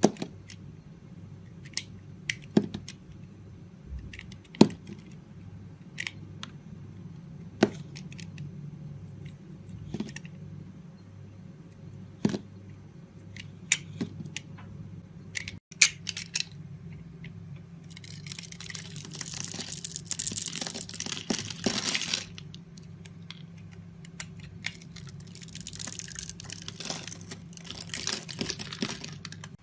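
A blade cutting into a bar of soap: crisp single cuts every second or two, then two longer spells of dense crackling scraping as the soap is shaved and crumbles.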